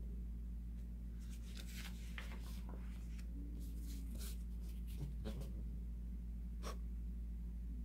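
Paper pages of a picture-book booklet being turned and handled: a few short rustles and slides, over a steady low hum.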